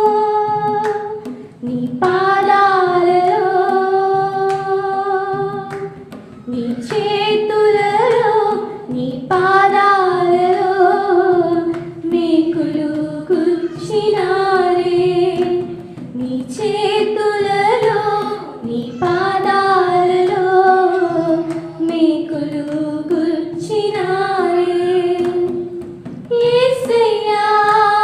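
A small group of women singing a Telugu Christian hymn together, in sung phrases a few seconds long with short breaks for breath between them.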